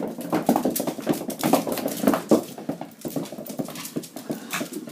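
Small dogs playing on a hardwood floor: a rapid patter of claw clicks, knocks and scuffles, with a few brief dog vocal sounds.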